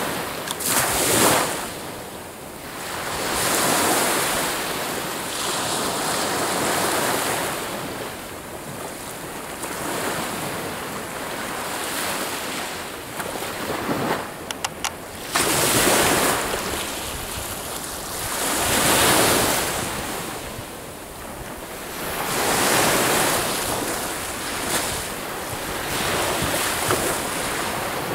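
Small sea waves breaking on a pebble beach and washing back, the surf swelling and fading every few seconds. There is a brief run of clicks a little past the middle.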